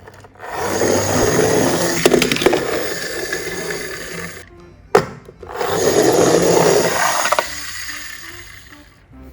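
Toy cars rolling down a ramp in two runs. Each starts with a sharp click and a rattling rush that swells and then fades over a few seconds.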